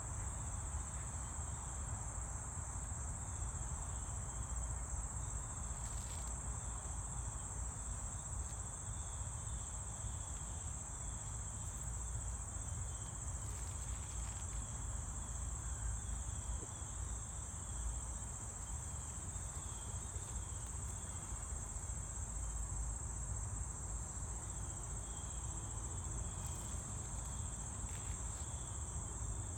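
Insects trilling in one steady, unbroken high-pitched drone, with a fainter repeating chirp lower down, over a low steady rumble.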